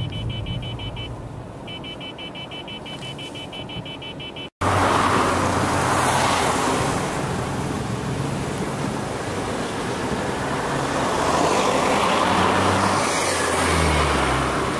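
Rapid electronic beeping, about six pips a second with a short break, over a car's idling engine. Then, after a sudden break, a loud steady rush of wind and road noise from a moving car, its engine note rising near the end.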